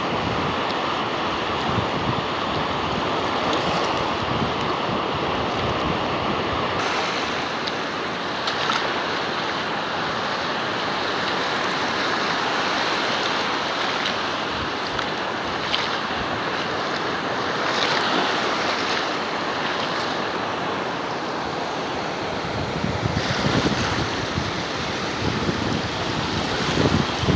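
Surf washing onto the beach, swelling and easing, with wind buffeting the microphone.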